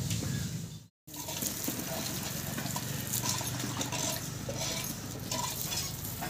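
Water sloshing and splashing in a metal bucket as a mug is dipped in and filled, over a steady low background hum.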